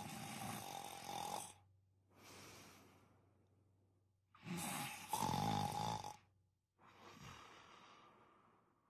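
A person snoring: two loud snores, each followed by a quieter breath that fades away.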